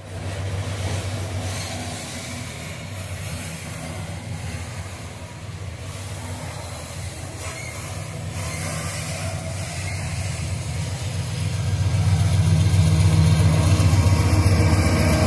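Freight train rolling past, wagon wheels running over the rails with a steady low hum. Over the last few seconds a mid-train diesel locomotive comes alongside and its engine grows louder.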